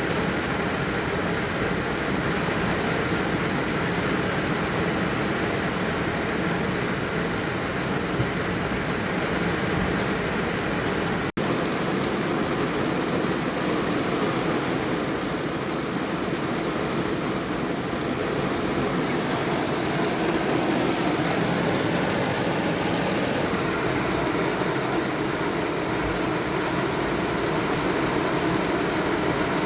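Heavy rain falling, a steady rush of noise. It cuts out for an instant about eleven seconds in.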